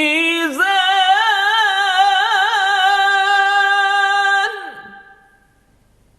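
Solo unaccompanied Quranic recitation: the word 'al-mizan' is chanted and drawn out for about four and a half seconds on a wavering, ornamented pitch, a turn into maqam Ajam. It then stops and rings out briefly into near silence.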